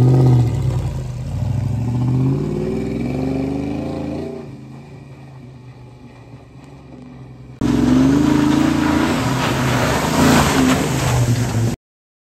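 A Land Rover 101 Forward Control's engine revs up as the truck pulls away, climbing in pitch and fading into the distance. About seven and a half seconds in, it cuts suddenly to a louder, close-up engine run that rises and falls, then stops abruptly near the end.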